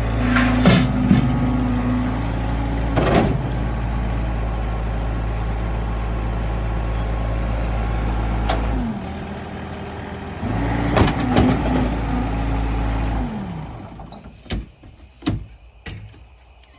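Skid steer's engine running steadily with a humming tone; the hum drops away briefly about nine seconds in, returns, then winds down and stops about thirteen seconds in. A few sharp knocks and clicks follow.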